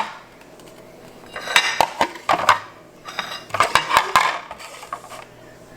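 Dishes and cutlery clattering and clinking in two short bursts as plates and utensils are handled.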